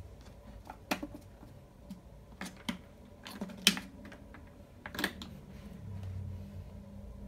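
Piano-key push buttons and switches on the base of a vintage Mitsubishi desk fan clicking as they are pressed, about six sharp clicks with the loudest near the middle. Near the end the fan's motor sets in with a low hum.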